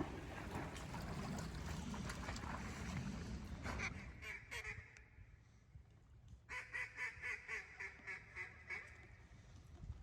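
Mallard hen quacking in quick runs: a short burst about four seconds in, then a longer run of about ten quacks at roughly four a second. A rushing noise fills the first few seconds.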